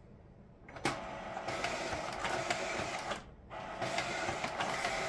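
Epson FastFoto FF-680W sheet-fed photo scanner set to 300 dpi, feeding and scanning a stack of prints. A click about a second in starts a steady mechanical run, which breaks off briefly a little past three seconds between one print and the next, then resumes.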